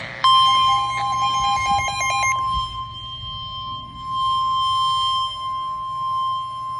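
Weather radio sounding the NOAA Weather Radio 1050 Hz alert tone, a single steady high tone that comes on just after the start and holds. For about the first two seconds a stepped electronic beeping plays over it. The tone signals an incoming warning broadcast, here a severe thunderstorm warning.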